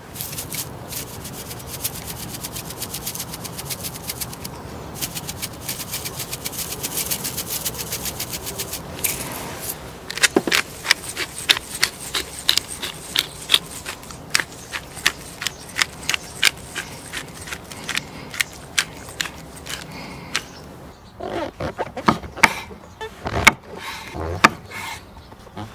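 A hand spice grinder is twisted over raw steak, giving a long run of fast fine crackling clicks, then sparser, sharper clicks. Near the end a knife slices a king oyster mushroom on a wooden cutting board, with a few dull thumps of the blade meeting the board.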